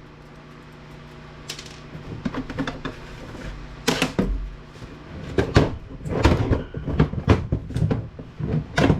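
Irregular knocks and clatter of an APC battery backup unit's plastic casing and parts being handled and pulled apart, busiest in the second half, over a steady low hum.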